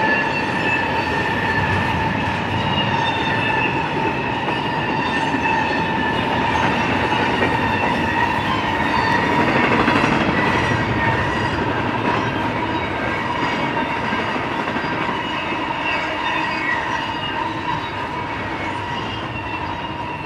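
Double-stack intermodal freight cars rolling past on steel rails: a steady rumble and rattle of wheels, with a sustained high-pitched squeal of wheels against the rail. The sound fades near the end as the last cars pull away.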